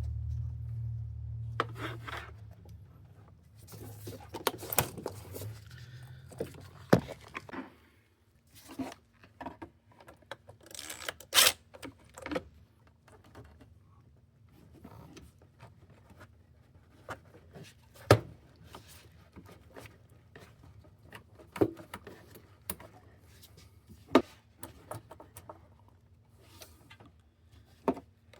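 Hands working on parts in a car's engine bay: scattered clicks, knocks and rubbing as pieces are handled. A low rumble stops about seven seconds in.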